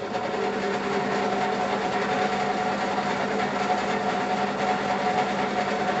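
Draper pillar drill (drill press) running with no load, making a steady hum and rattle that is quite noisy. The owner believes most of the noise comes from the pressed-steel casing over the belt pulleys rattling.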